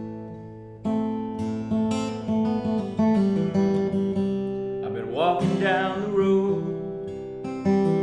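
Steel-string acoustic guitar strummed, the chords ringing between fresh strums every second or two. About five seconds in, a brief wordless sung note rises and wavers over the guitar.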